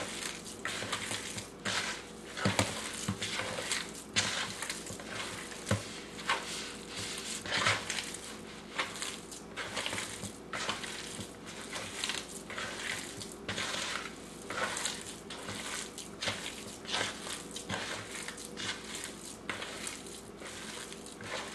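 Bare hand kneading and mashing soft chopped Spam with onions in a plastic bowl: irregular squishing and scraping strokes, two or three a second.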